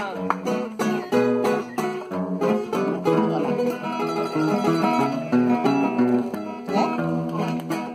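Live nylon-string acoustic guitar playing a quick run of plucked notes and chords: an instrumental passage of a corrido, with no singing.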